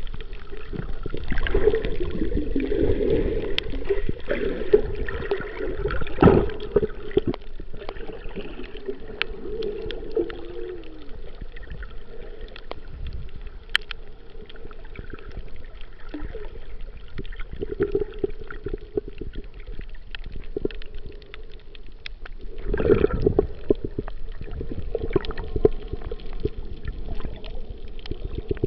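Muffled underwater water noise picked up by a camera held below the surface: sloshing and gurgling with louder surges now and then, and scattered small clicks.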